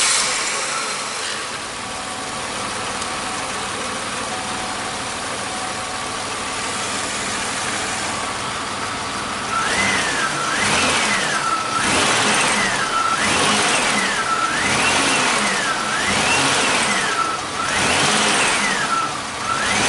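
A 2005 Chevy Impala engine runs steadily, then about halfway through it is revved up and down repeatedly, about once every second and a half. The test runs are part of diagnosing an intermittent stall and crank-no-start that is being traced to the cam sensor and injector wiring.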